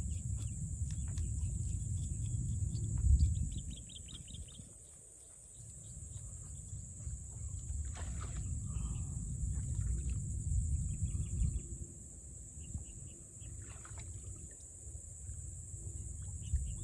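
Wind buffeting the microphone in uneven gusts, over a steady high hiss, with short fast trills of bird chirps now and then.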